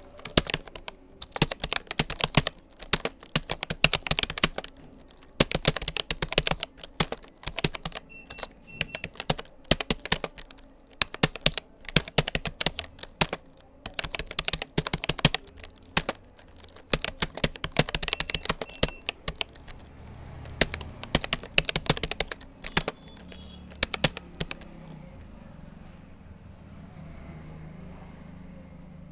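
Fast typing on a Rapoo computer keyboard: keystrokes clatter in quick runs with short pauses, then stop a little after three-quarters of the way through, leaving a low steady hum.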